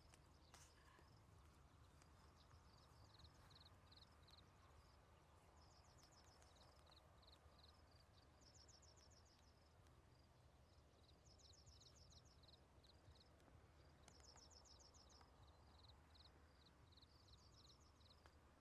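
Near silence with faint, high-pitched animal chirping: short pulsed phrases that recur every two to three seconds over a low, steady rural background.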